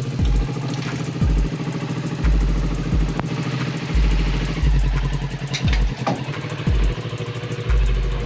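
Kawasaki Z650 parallel-twin engine idling steadily, with deep bass thumps coming and going every second or so.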